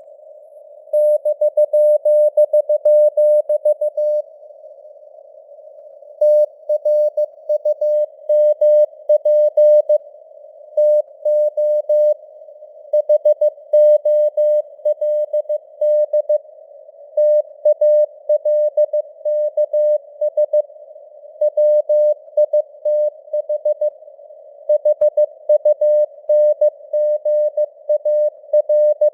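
Morse code (CW) sent at 15 words per minute: a single mid-pitched tone keyed on and off in dots and dashes, with longer pauses between words. A narrow band of hiss from simulated radio noise sits around the tone.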